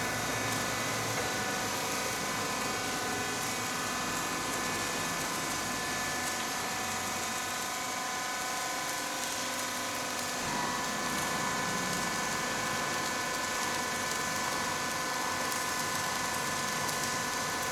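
XN780 corrugated roll forming machine running: a steady machine whine of several high tones over a constant hiss, one tone getting stronger about ten seconds in.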